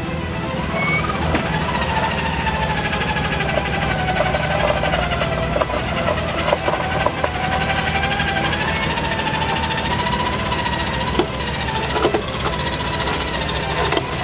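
Modified Jeep Wrangler's engine running at low revs as it crawls up a steep mud slope, with a wavering whine that rises and falls with the throttle. A few knocks come through around the middle and near the end.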